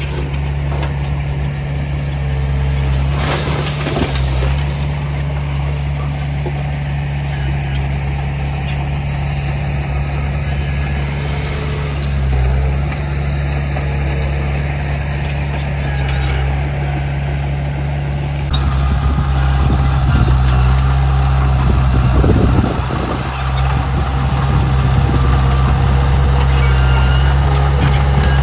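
Diesel engines of heavy earthmoving machinery running steadily with a low drone. The sound grows louder and busier about two-thirds of the way through.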